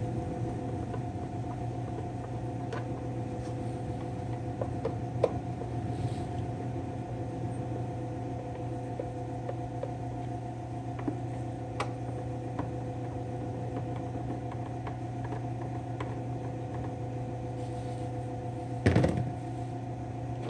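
A steady background hum, with a few light clicks as the chainsaw's top cover is worked loose, and one louder knock near the end.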